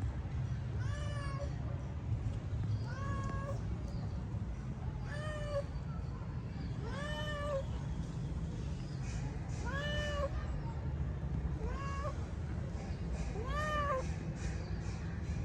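A cat meowing repeatedly: about seven short meows, one every one to three seconds, each rising and then falling in pitch. A steady low rumble runs underneath.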